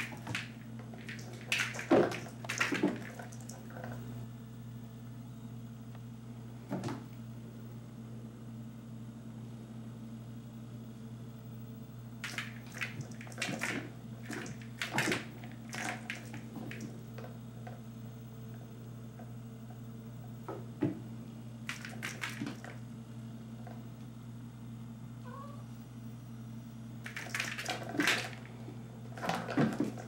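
A kitten's paws and a feathered bungee toy knocking and skittering on a hard floor as she jumps and pounces, in scattered clusters of short sharp taps, over a steady low hum.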